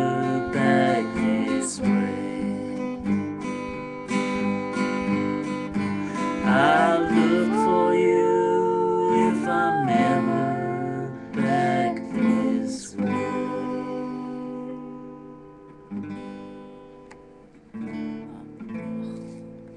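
Acoustic guitar strummed, with sung notes over it in the first half. Toward the end the strums thin out and the last chords ring and fade away.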